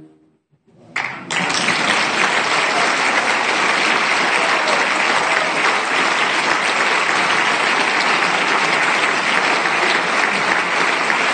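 Concert audience breaking into applause about a second in, then clapping steadily.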